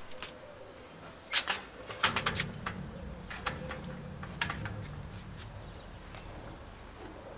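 Folding metal clothes drying rack being opened out and set up: sharp metal clicks and clatters, the loudest about a second in, then a quick cluster near two seconds and a few single knocks after. A low rumble lies underneath for a few seconds in the middle.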